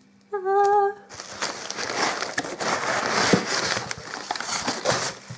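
Crumpled packing paper rustling and crinkling loudly as handfuls of it are pulled out of a cardboard shipping box, a dense crackle for about four seconds.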